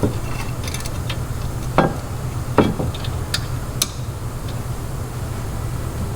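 Metal tools and hardware clinking and knocking during hand work on a truck's suspension bracket: a few separate knocks and clicks over a steady low hum.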